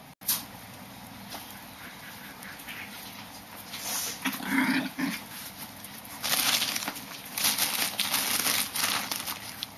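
Chihuahua puppies play-wrestling on a blanket: scuffling and rustling of fabric, louder and busier from about six seconds in, with a short squeak from a puppy a little before the middle.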